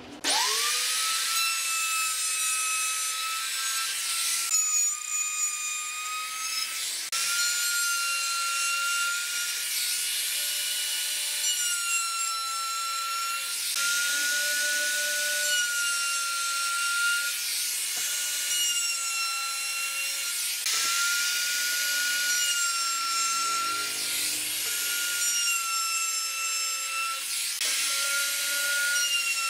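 Compact trim router winding up and then running at a steady high whine, its bit cutting grooves into a wooden board, the pitch dipping slightly now and then as the bit takes load.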